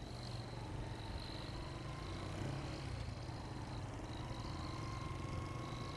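Motorcycle engine running steadily at low speed, heard faint and low through a clip-on mic with wind noise reduction, with a thin high steady tone above it.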